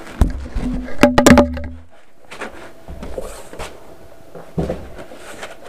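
Polystyrene foam packing and a cardboard box being handled as a desktop tower is lifted out and its foam end caps pulled off: a burst of loud knocks and foam squeaks in the first two seconds, then softer bumps and a thump near the end.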